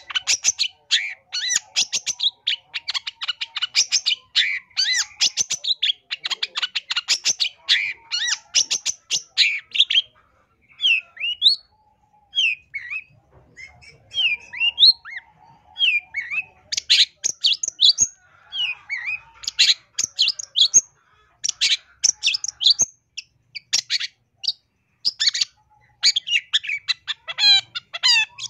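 Long-tailed shrike singing a busy, varied song full of mimicked phrases: rapid runs of high chirps and chattering notes, broken for a few seconds in the middle by single slurred whistles, then fast runs again.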